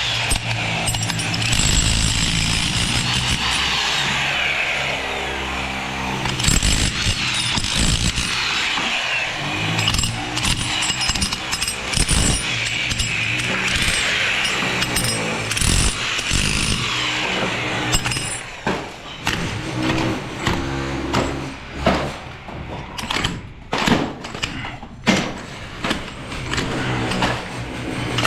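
A power tool running, with a whine that rises and falls, for most of the first eighteen seconds, followed by a string of knocks and clatters of construction work.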